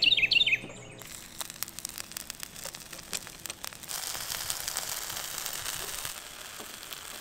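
A small bird chirping in quick repeated notes, then from about a second in pancake batter sizzling and crackling in a pan on a one-burner camp stove, the sizzle getting louder about four seconds in.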